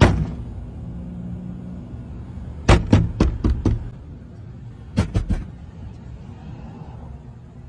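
A loud bang at the start, then a quick run of about five sharp knocks nearly three seconds in and three or four more about five seconds in.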